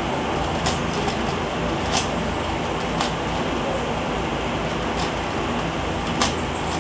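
Eastsheen 5x5 plastic puzzle cube being turned quickly, with a few short sharp clicks from the layers, over a steady background hiss.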